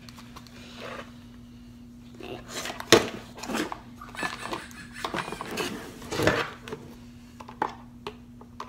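Hard plastic toy packaging being handled. There is a sharp clack about three seconds in, then scattered clicking and rattling.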